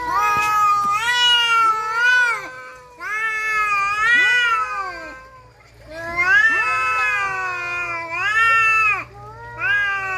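Two orange tabby cats yowling at each other in a standoff, long wavering caterwauls that rise and fall in pitch and overlap. The calls break off briefly about three seconds in, again around the middle and once near the end. This is the threat yowling of cats squaring up to fight.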